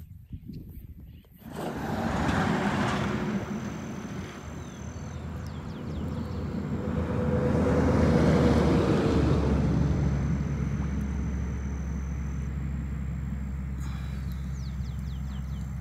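A motor vehicle passing by: a steady low engine hum and tyre noise that swell to a peak about halfway through, with a tone sliding down as it goes past, then fade.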